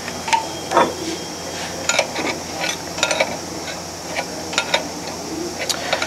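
Irregular light metallic clicks and taps of a hand tool working a pneumatic tubing connection on a valve positioner, over a steady hiss.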